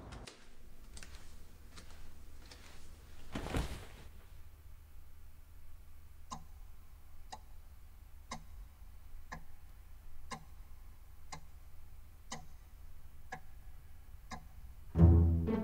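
A clock ticking steadily, about one tick a second, in a quiet room. A short rustle comes about three and a half seconds in, and low bowed-string music swells in at the very end.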